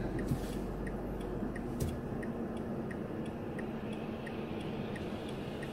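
A car's turn-signal indicator ticking evenly, about three ticks a second, inside the cabin over the low hum of the idling engine.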